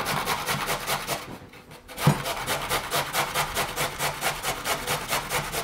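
Carrot being grated on a stainless-steel box grater: quick rasping strokes, about four a second. The grating stops briefly a little over a second in, then resumes with a knock.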